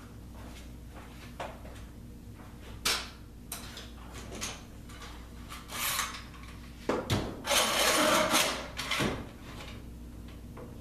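A metal bar clamp being handled and set on a glued plywood rib: scattered knocks and clicks against the wood, then scraping and rattling of the clamp, loudest about seven to eight and a half seconds in, as it is slid into place and tightened.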